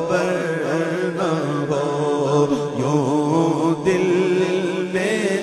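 Unaccompanied naat singing by men's voices: a lead voice drawing out a winding melodic line over a steady low hum from backing singers.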